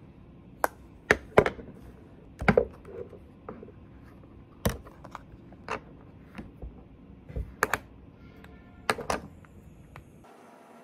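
Irregular sharp plastic clicks and taps from a makeup cushion compact being handled on a desk, its case and lid knocking, about a dozen over ten seconds.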